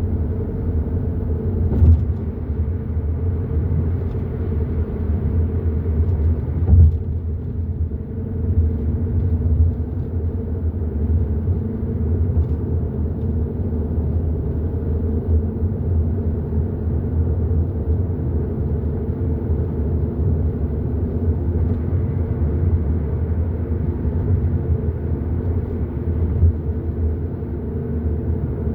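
Hyundai i30 N Line driving along: a steady low rumble of road and engine noise, with two short thumps about two and seven seconds in.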